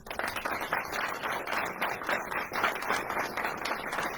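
Audience applauding, a dense, steady mass of clapping.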